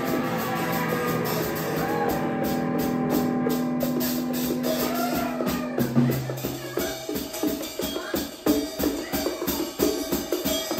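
Live band playing an instrumental passage. Held chords ring over drums for about six seconds, then the chords drop away and a busier, even beat of drums and hand-played bongos takes over.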